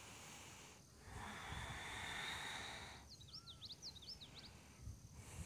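Faint open-air quiet with a soft hiss for about two seconds, then a small bird giving a quick run of high, short chirps about three seconds in.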